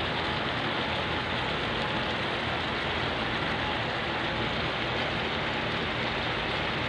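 Chicken stew simmering in a frying pan, its sauce bubbling with a steady, even hiss.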